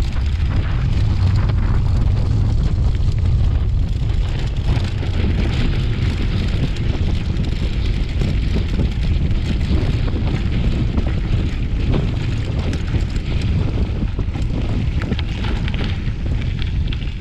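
Mountain bike rolling over a grassy dirt track, filmed by a handlebar-mounted action camera: steady wind rumble on the microphone with a dense crackle of tyre and rattle noise over it.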